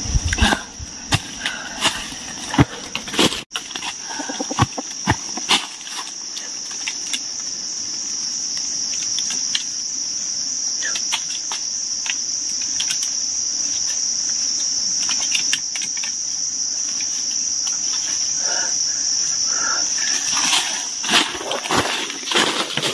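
Steady, shrill chorus of insects in forest undergrowth, with scattered clicks and rustles of handling and movement in dry leaves, busiest in the first few seconds and again near the end.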